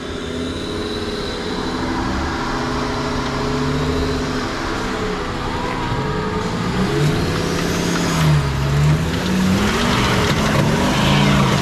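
VW Touareg's 5.0 V10 TDI diesel engine working under load as the SUV crawls through brush and climbs a steep muddy bank. Its revs run steady at first, then rise and fall again and again in the second half as the climb goes on.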